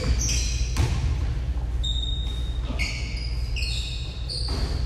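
Basketball sneakers squeaking in short high chirps on a hardwood gym floor, with a basketball bouncing or knocking a few times, over a steady low hum in the hall.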